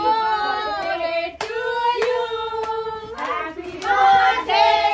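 A group of voices, children among them, singing together with held notes, and hands clapping in time about every half second.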